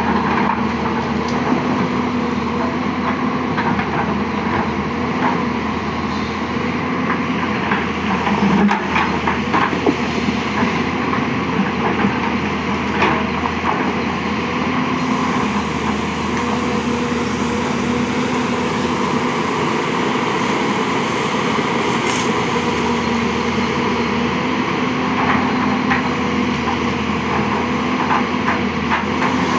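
Hyundai 220-9S crawler excavator's diesel engine running steadily under working load as the arm and bucket move, with a few scattered knocks.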